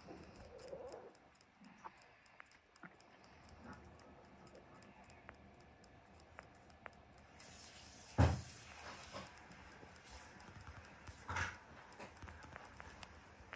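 Long-haired Syrian hamster eating a grape close up, with faint small clicks and smacks of chewing. A louder bump about eight seconds in and a softer one about three seconds later.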